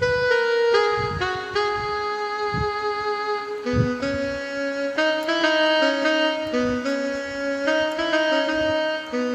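Casio CTX-9000 arranger keyboard playing a melody of held notes in a saxophone-like voice, over an accompaniment with regular low beats.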